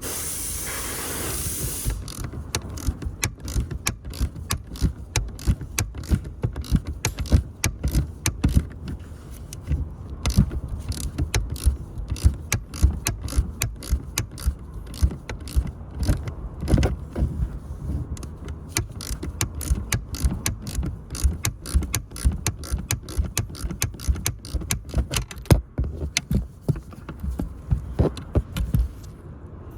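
Ratchet wrench with a T50 Torx socket clicking in quick uneven runs as the seat belt buckle's bolt is unscrewed. A short hiss comes first.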